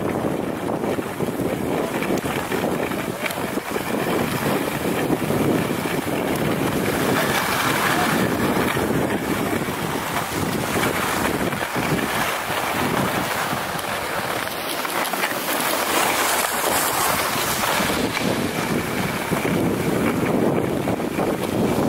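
Steady wind noise buffeting the microphone while skiing downhill, mixed with the continuous hiss of skis sliding over groomed snow.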